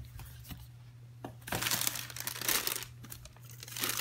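Tissue paper inside a sneaker box crinkling as hands fold it back, with a click a little over a second in and the rustling heaviest from about a second and a half in.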